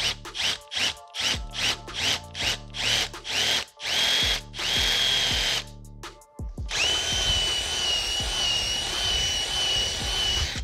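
Cordless drill boring through a steel shifter arm with a twist bit, run in short trigger bursts and then steadily for a moment. After a short pause a countersink bit cuts the edge of the hole with a steady high squeal.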